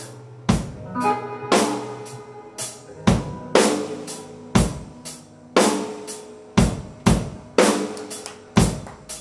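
A live rock band playing without vocals. A drum kit keeps a steady beat of about two hits a second, with kick, snare and cymbals, over sustained instrument tones.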